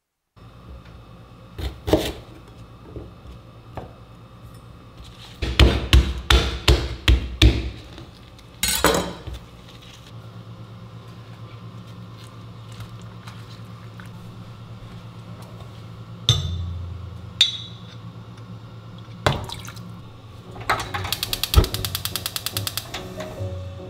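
Kitchen handling sounds: scattered knocks, then a run of about eight sharp knocks around five to eight seconds in, and a few thumps. Near the end, a gas hob's electric igniter clicks rapidly and evenly for about two seconds as the burner knob is turned.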